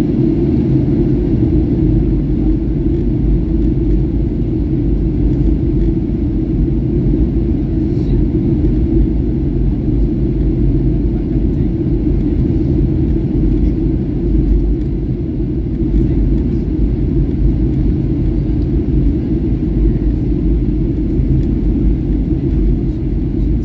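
Steady low rumble inside the passenger cabin of a Boeing 737-800 in flight during its descent, from the CFM56-7B engines and the airflow over the fuselage, heard from a window seat.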